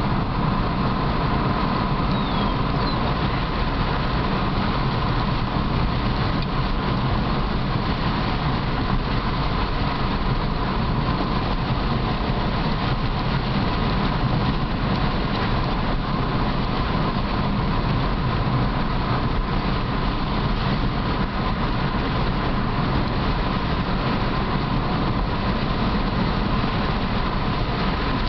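Car driving at a steady speed on rough, patched asphalt, heard from inside the cabin: a constant mix of tyre, road and engine noise with a faint steady whine.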